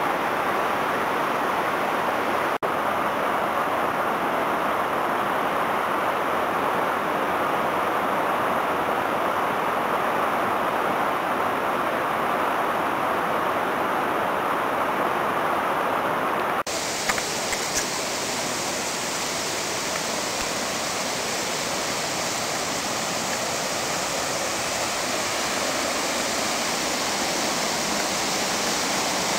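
Large waterfall, about 15 metres high, pouring into its pool: a steady, dense rush of falling water. About 17 seconds in the sound switches abruptly to a brighter, hissier rush.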